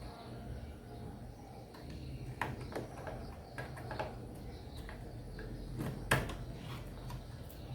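Scattered small clicks and knocks of a RAM module being handled and pushed into a desktop PC's memory slot among the cables, with the sharpest click about six seconds in.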